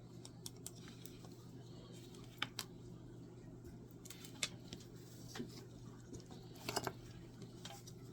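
Scattered light clicks and taps of small tools and parts being handled at a soldering bench, over a steady low hum.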